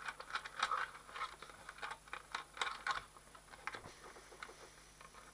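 Small clicks, taps and scrapes of a small screwdriver and fingers on the plastic housing and keypad of an inverter drive, many in quick succession for about the first three seconds, then fewer and fainter.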